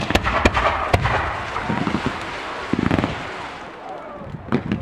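Professional fireworks display: a rapid cluster of sharp bangs from bursting shells in the first second, then a hissing spell with a few more bangs, and another cluster of bangs near the end.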